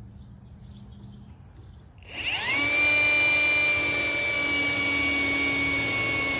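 Cordless drill with a step drill bit starting up about two seconds in, the whine rising, then running steadily as the bit cuts a small hole, just under a quarter inch, through the sheet-steel hood.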